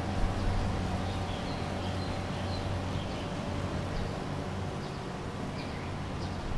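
Steady low street-ambience hum with a faint held tone, and a few short faint bird chirps scattered high above it.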